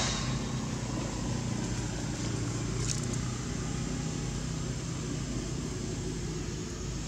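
A steady low engine hum, with a brief high tick about three seconds in.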